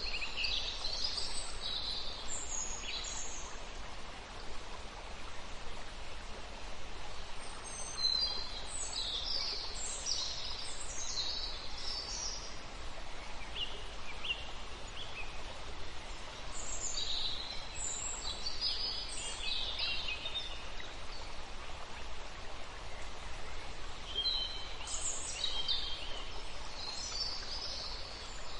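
Birds chirping in short high clusters every several seconds over a steady hiss of outdoor ambience.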